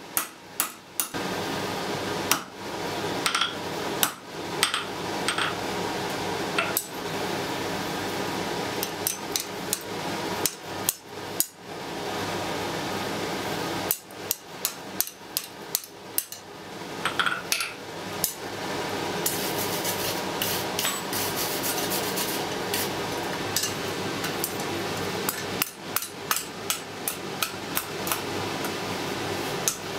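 Blacksmith's hand hammer striking a red-hot iron bar on an anvil in runs of quick blows, with pauses of a few seconds between runs, over a steady background hiss.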